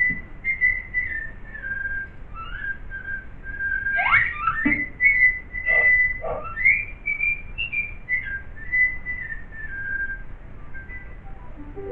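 Cartoon soundtrack of a whistled tune, a single wavering melody line, with a few quick upward swoops about four seconds in.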